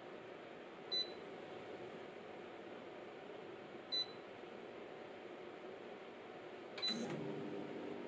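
Corona CW-1622R window air conditioner running in fan mode, beeping twice as it takes remote-control commands about a second and four seconds in. Near the end a click sounds and a steady compressor hum joins the fan: the compressor has kicked in to cool at the lowered 20 °C setting.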